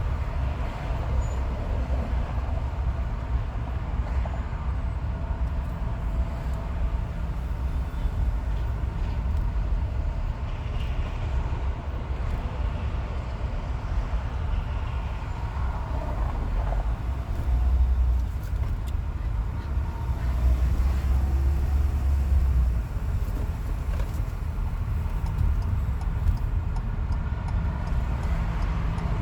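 Car driving on a freeway, heard from inside the car: steady low tyre and road rumble. The rumble swells louder briefly a little past halfway and again for a few seconds soon after.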